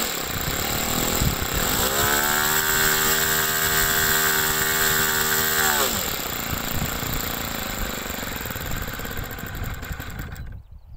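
RC model airplane engine run up to high revs for about four seconds, then throttled back down, over wind rumbling on the microphone. The sound cuts off suddenly near the end.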